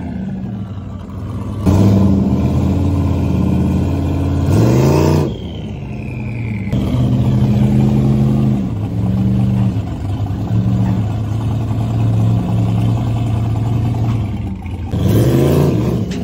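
Drag-racing 4x4 pickup engines revving hard at the starting line, the revs rising sharply about two seconds in, climbing again around five seconds and near the end, with a steadier high engine note between.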